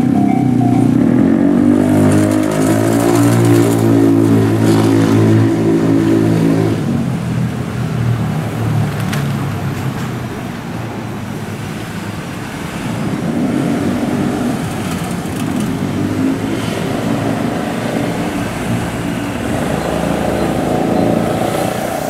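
A Tobu 8000-series two-car electric train running by: its traction motors hum with a pitch that rises and falls through the first several seconds over wheel-on-rail noise, with a second, fainter spell of motor hum later on. A level-crossing bell rings at the start, stops about a second in, and starts again right at the end.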